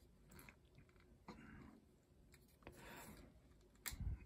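Faint clicks and rubbing of a Transformers Kingdom Tigatron plastic action figure being handled and posed in the hands, with a sharper click near the end.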